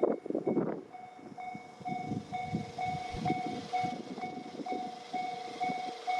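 Railway level crossing warning bell ringing about twice a second while a train rumbles and clatters past.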